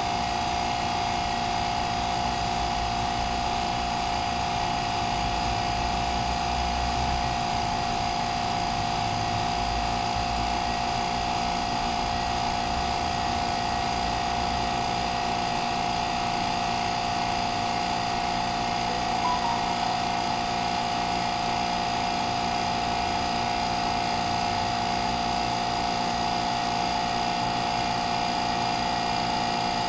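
The electric hydraulic pump of a concrete compression testing machine runs steadily with a constant whine as it drives the ram and the load on a concrete cylinder keeps rising.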